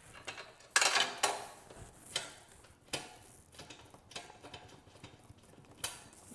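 Light metal clinks and clicks of a motorcycle crash bar, bolt and spacer being handled and fitted by hand, loudest in a short cluster about a second in, then a few single clicks.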